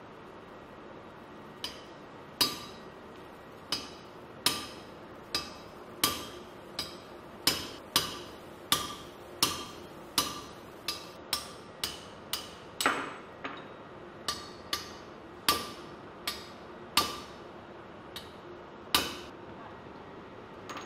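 A hammer strikes a steel drift about two dozen times, roughly one to two blows a second, each with a short metallic ring. The blows are driving a valve spindle guide out of a marine generator diesel engine's cylinder head.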